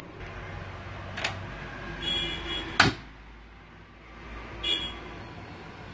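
Clicks and light metallic knocks as a gas stove burner knob is turned to light it, some knocks with a short ring. The sharpest click comes about three seconds in.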